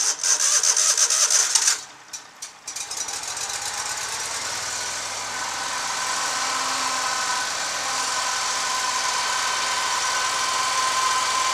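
Vermeer SC252 stump grinder's Kohler 25-horsepower engine being started cold: the electric starter cranks for about two seconds, stops, bumps briefly, then the engine catches and runs steadily.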